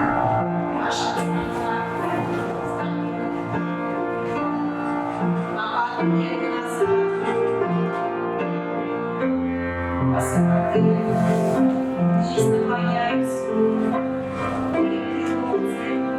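Instrumental music with long held notes changing about every second, played as accompaniment for a folk-dance barre exercise.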